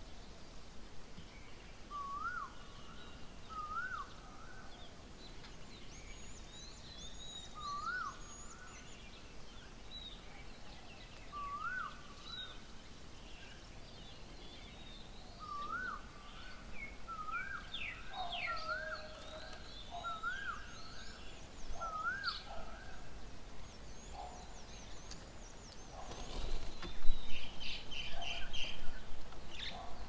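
Birds calling in the open. One bird repeats a short rising call every couple of seconds while others chirp higher up, and there is a louder burst of calls near the end.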